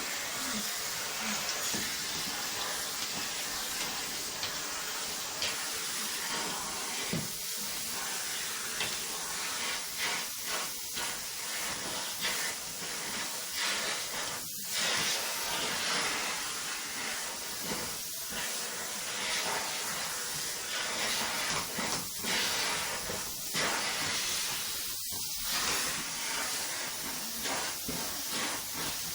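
Vacuum cleaner running steadily with an even, airy hiss, its sound briefly changing a few times as the nozzle moves.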